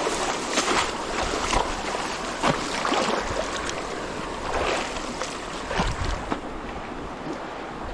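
Irregular splashing and rustling of feet stamping through grass at the edge of a shallow stream to drive fish into a scoop net, over the steady rush of the flowing water.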